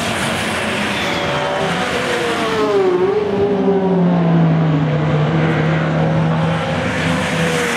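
Racing saloon car engines at full speed as several cars pass on the straight. The engine notes swoop in pitch, dipping about three seconds in, then one engine holds a steady note.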